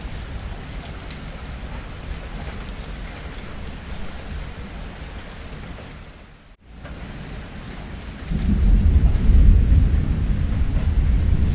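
Steady heavy rain with a low rumble of thunder underneath. About two-thirds of the way through, the sound cuts out for a moment; a loud, deep thunder rumble then sets in and keeps going over the rain.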